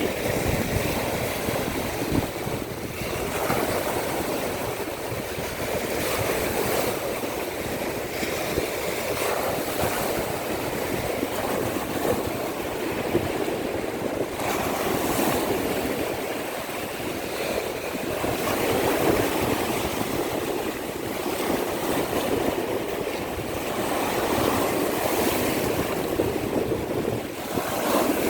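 Baltic Sea surf breaking and washing on the shore: a continuous rushing noise that swells and eases every few seconds as waves come in.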